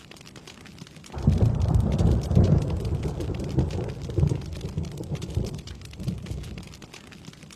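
Thunder over steady rain: a sudden low rumble starts about a second in, rolls on in several surges, then fades away over about five seconds while the rain hiss continues.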